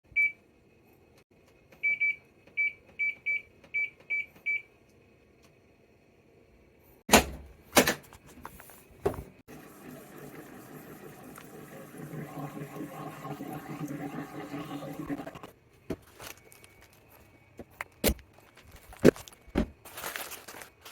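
Panasonic NA-VX7200L drum washer-dryer, its water inlet valve failed: the control panel beeps eight times at one pitch as buttons are pressed, then two loud clunks come from the machine. The machine then runs with a low mechanical hum for about six seconds that grows louder halfway through, and scattered clicks and knocks follow near the end.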